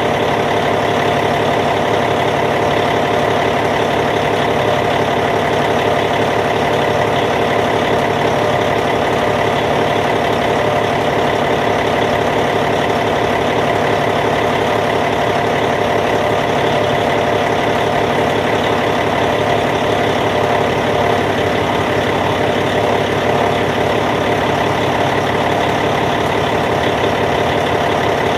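Caterpillar C15 six-cylinder diesel engine of a D8T bulldozer idling steadily.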